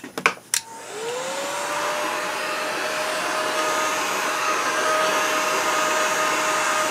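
A few clicks, then a heat gun's fan spins up, its whine rising over about a second and settling into a steady tone over rushing air. It is heating the aluminium wheel hub so that it expands and the frozen new wheel bearings can be driven in.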